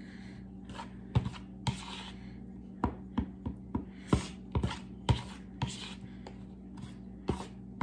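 A utensil stirring a thick mix of melted dark chocolate and peanut butter in a container: irregular scrapes and about a dozen sharp clicks and knocks against the sides, over a steady low hum.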